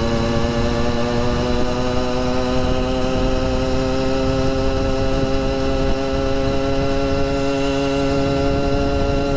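Two-stroke engine of a motorized bicycle running hard at high revs under load. Its pitch climbs slowly and steadily as the bike gains speed.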